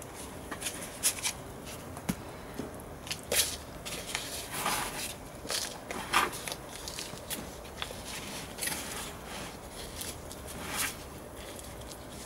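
Hands scooping and pressing potting compost around a plant in a plastic pot: irregular rustles, scrapes and light crackles of compost against plastic.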